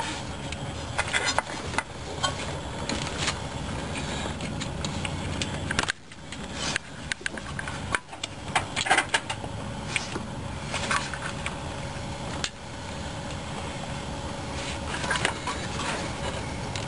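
Scattered metal clicks and scrapes as a distributor hold-down clamp and its bolt are handled and fitted at the base of a distributor, over a steady low mechanical hum.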